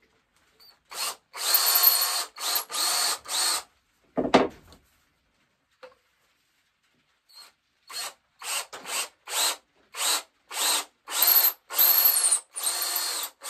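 Cordless drill boring the spout hole into the solid tip of a powder horn, run in short trigger bursts. A cluster of bursts comes first, then a single knock about four seconds in, then a quick run of about two bursts a second, some with a thin squeal of the bit in the horn.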